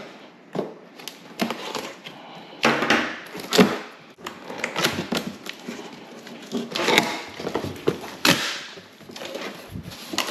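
A cardboard shipping box being opened by hand: tape slit and flaps torn loose and folded back, giving an irregular run of sharp rips, scrapes and cardboard knocks.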